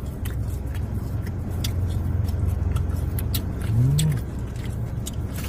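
Steady low hum of a car cabin, with scattered crisp crunches of chewing fried snack sticks close to the microphone. A short hummed voice sound comes about four seconds in.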